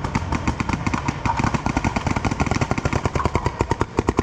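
Paintball marker firing rapidly in a long, steady stream of sharp pops, laying down suppressing fire to pin an opponent behind cover.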